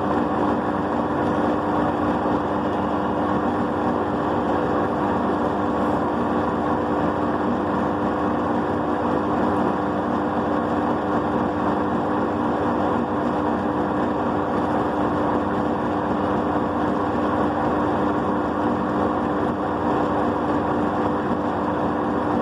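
Ultra Gold wet grinder running steadily: a constant motor hum with an even, rough grinding whir that does not change.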